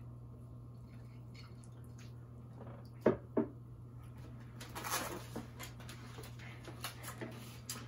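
Quiet sounds of people eating takeout: two sharp clicks of utensils about three seconds in, then a short burst of slurping and chewing of pho noodles around five seconds, with small clicks from the plastic containers, over a steady low hum.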